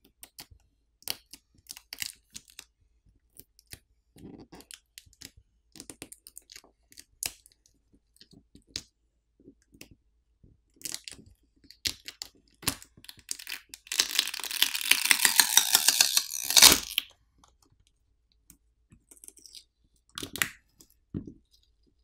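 Smartphone battery adhesive crackling as the battery is pulled and pried up by hand: scattered small clicks and crinkles, then a dense crackle lasting about three seconds past the middle that ends in a sharp crack.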